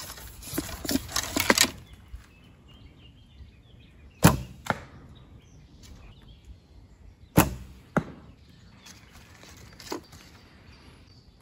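Arrows clatter in a hip quiver as one is drawn out. Then come two bow shots about three seconds apart, each a sharp snap of the string on release followed about half a second later by a softer knock as the arrow strikes a 3D foam target.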